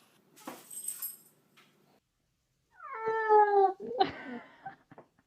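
Domestic cat meowing: a long, loud meow that falls in pitch, about three seconds in, followed at once by a rougher, shorter cry. A brief rustling noise comes about half a second in.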